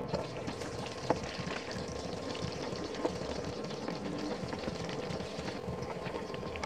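Soup bubbling and crackling in a pot on the heat, with a sharp click about a second in and another about two seconds later.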